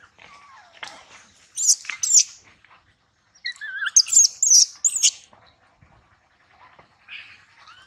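Infant long-tailed macaque squealing: high-pitched, wavering cries in two bouts, a short one about a second and a half in and a longer one from about three and a half to five seconds in.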